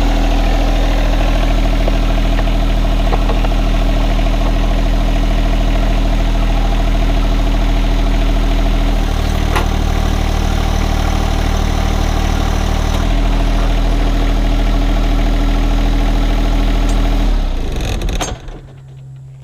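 A John Deere 1025R compact tractor's three-cylinder diesel engine running steadily. Its low note changes for a few seconds in the middle. Near the end the engine is shut off and winds down to a stop.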